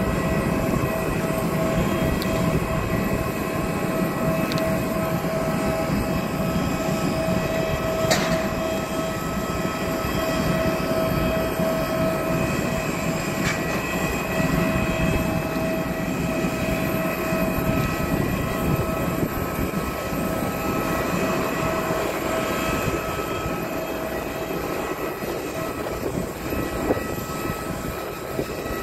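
Jet aircraft turbine running steadily: a constant rushing noise with a steady high whine over it, and a brief click about eight seconds in.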